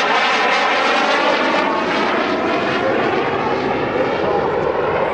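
Aermacchi MB-326 Impala jet trainer's Rolls-Royce Viper turbojet heard from the ground as the aircraft flies overhead: a loud, steady jet noise whose tone bands slowly sweep and drift as the jet moves.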